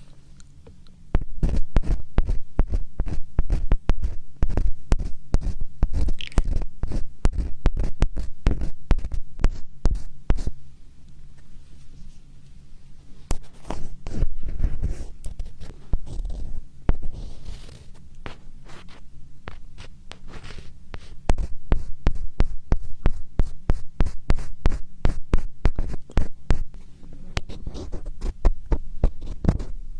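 Close-miked ASMR scratching: rapid, crackly scratches right on the microphone, with a dull low thud under the strokes. The scratching eases off for several seconds in the middle, then picks up again.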